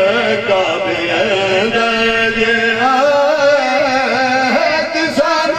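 A man chanting a melodic religious recitation, a zakir's sung delivery, with wavering, drawn-out notes and one long held note near the end.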